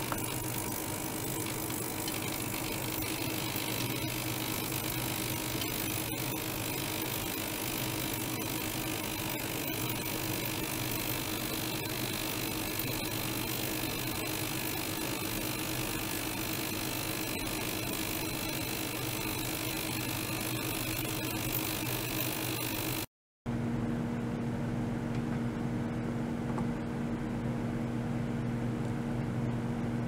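A small liquid-circulation pump and an ultrasonic cleaning bath run together, giving a steady hum with a hiss over it as water circulates through the tank. About three-quarters of the way in, the sound cuts out for a moment and comes back with the hum at a different pitch.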